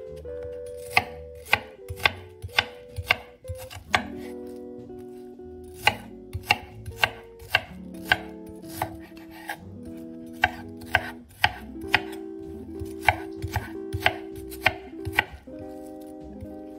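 Chef's knife dicing red onion on a wooden cutting board: crisp knocks of the blade on the board, about two a second in runs with short pauses. Soft background music with sustained notes plays underneath.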